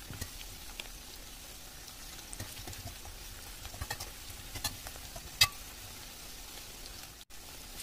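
Chicken pieces sizzling gently in hot oil in a stainless steel kadai as they fry to golden. A steel spatula stirs them and clinks against the pan a few times, sharpest about five seconds in.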